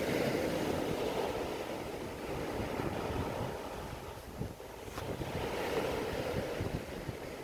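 Waves washing in with a steady rushing noise that swells twice, near the start and again about two-thirds of the way through.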